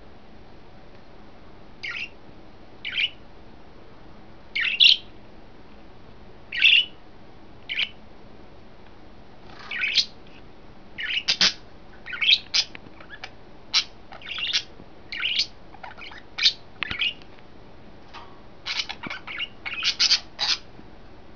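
Pet budgerigars calling in short, high calls, one every second or two at first, then coming thick and overlapping from about ten seconds in.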